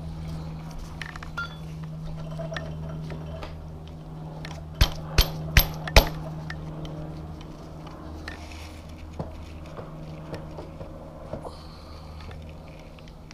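Four sharp metal clinks in quick succession, about half a second apart, around five seconds in, as a motorcycle fork tube is worked up into its triple clamps, with a few fainter taps later. A steady low hum lies underneath throughout.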